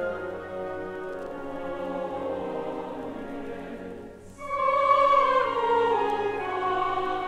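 Choir and orchestra playing in operatic style, sampled from an old vinyl record. After a brief dip about four seconds in, a louder passage comes in with its melody stepping downward.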